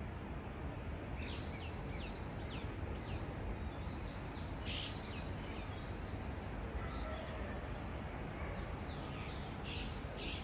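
Small birds calling in quick runs of short, high, downward-sliding chirps, in three clusters about a second in, around the middle and near the end, over a steady low rumble of distant city traffic.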